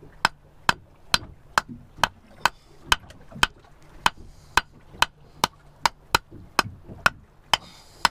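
Hammer striking the spire of a conch shell, a steady run of sharp knocks about twice a second, knocking a hole in the shell to open it and free the meat.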